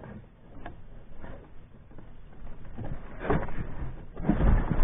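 Knocks and rubbing on a polyethylene canoe hull as a rope is handled at the gunwale, picked up through the hull by the mounted camera. Scattered light knocks at first, growing louder and busier from about three seconds in.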